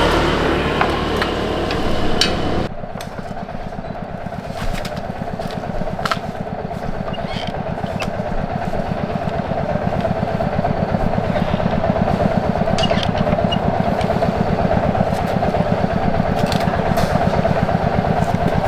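Small motorcycle engine running, loud and revved at first, then dropping suddenly about three seconds in to a steady, even idle that slowly grows a little louder, with a few faint clinks.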